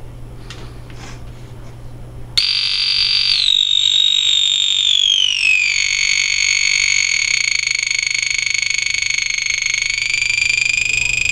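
Homemade electronic sound-generating circuit switching on abruptly about two seconds in with a loud, shrill, buzzy electronic tone. The pitch drops in two steps over the next few seconds, then holds steady, rising slightly near the end. Before it starts, a low steady hum.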